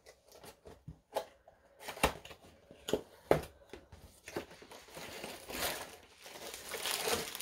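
Packaging of a diamond-painting kit being handled: scattered knocks and rustles, then plastic wrapping crinkling steadily over the last few seconds.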